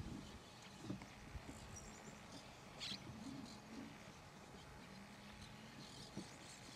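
Faint outdoor ambience with a few brief bird calls, including one short high chirp about three seconds in and a faint low wavering call near the middle.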